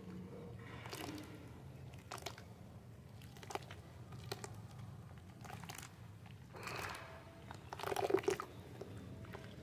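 Soft sand chunks crumbling and crunching in a series of separate crunches, with the loudest and longest about eight seconds in.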